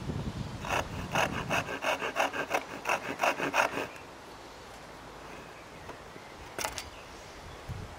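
Disston No.5 backsaw, freshly filed with 6 degrees of rake and 5 degrees of fleam, starting a cut in a board with rapid short strokes, about four to five a second, its thumb-guided blade rasping through the wood. The strokes stop about halfway through, and a couple more come near the end.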